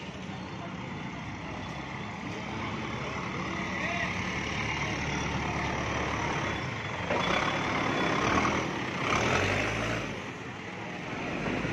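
Diesel engine of a CAT backhoe loader running close by, amid crowd voices and motorcycle engines. The noise grows louder about seven seconds in.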